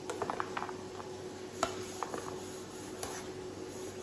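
Scattered light clicks and taps from a plastic cutting board and kitchen utensils being handled at a counter: a quick cluster about half a second in, then a few single clicks, over a faint steady hum.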